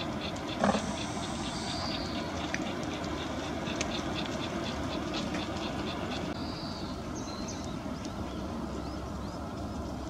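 Steady rumble of distant road traffic, with a few short high chirps of small birds and a single knock less than a second in.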